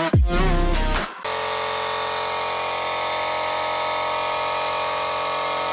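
Electronic music with a deep falling bass sweep for about the first second, then a small air compressor starts and runs steadily, a constant hum with hiss.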